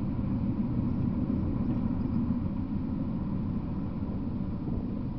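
Steady low outdoor rumble with a faint thin hum above it.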